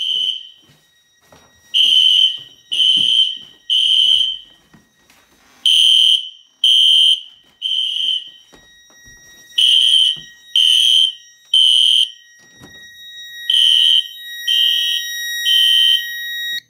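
Synchronized System Sensor horn-strobes sounding the temporal-three evacuation pattern: three short, loud horn blasts, a pause, then three more, four times over. About three-quarters of the way in, a steady high tone joins under the horns and cuts off at the end.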